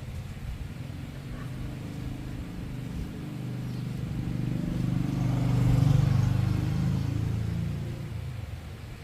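Motorcycle engine running, growing louder to a peak about six seconds in and then easing off; the sound cuts off abruptly at the end.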